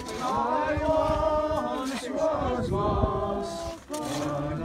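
A group of voices singing a hymn together without accompaniment. The phrases are held and sliding, with a brief break a little before the end.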